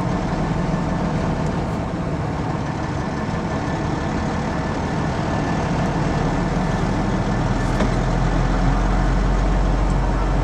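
Semi truck running: a steady diesel engine rumble with road noise, growing a little louder near the end.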